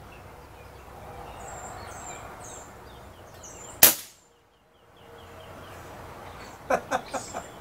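An Umarex Gauntlet .22 PCP air rifle fires a single shot about four seconds in: one sharp crack. A few light clicks follow near the end.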